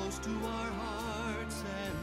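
Christmas song: voices holding notes with vibrato over a steady accompaniment.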